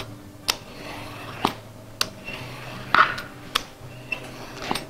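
Potato peeler shaving thin strips of skin off a cucuzza squash. Each stroke ends in a sharp tap of the peeler on the plastic cutting board, about seven strokes, some with a brief scrape.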